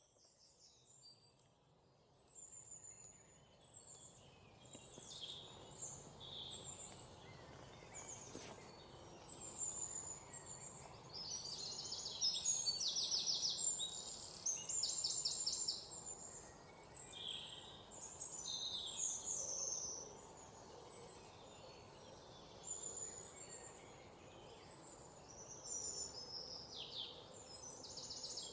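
Several songbirds chirping and calling in short high whistles, with fast trills a little before the middle and again at the end, over faint steady background noise. The birdsong is very faint at the start and swells over the first few seconds.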